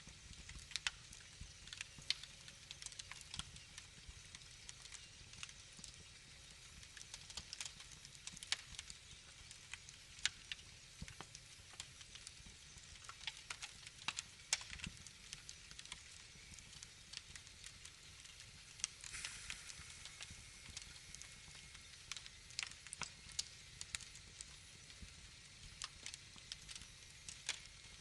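Wood fire crackling in a fireplace: irregular pops and snaps over a low, steady rumble, with a short hiss about two-thirds of the way through.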